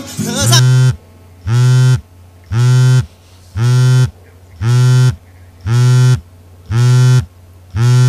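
Sony smartphone on vibrate buzzing against the metal lid of a CD player for an incoming call: eight half-second buzzes, about one a second.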